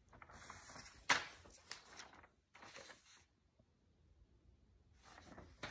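Rustling and handling noises in short spells, with a sharp click or knock about a second in and another near the end.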